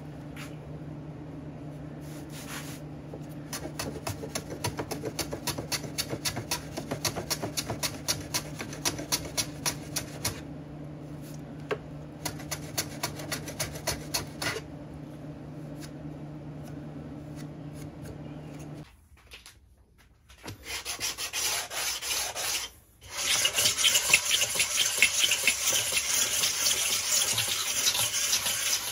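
A small block plane taking rapid short strokes along the edge of a walnut kumiko frame, over a steady low hum. Then, after a cut about two-thirds of the way through, hand sanding across the walnut kumiko panel makes steady rubbing, with a brief pause soon after it starts.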